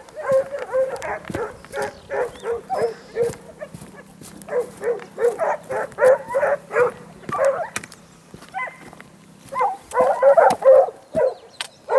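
Pack of hunting dogs baying on a hare's trail: runs of short high yelps that overlap, easing off briefly about two-thirds of the way through, then picking up louder near the end.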